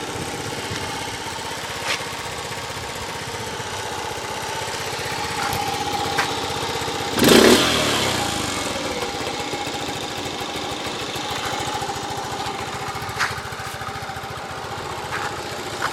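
Honda C70 Passport's small single-cylinder four-stroke engine idling steadily. About seven seconds in, the revs rise briefly and fall back.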